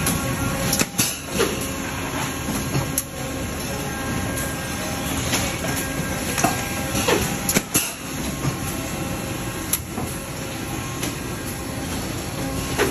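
Thermoforming plant machinery running: a steady mechanical din with sharp metallic clanks and knocks at irregular intervals.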